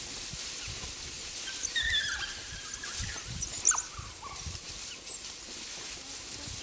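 African painted dogs squealing and twittering at a kill while they feed. One high, drawn-out squeal comes about two seconds in, and shorter sharp squeaks follow a second or two later, over low thuds from the jostling pack.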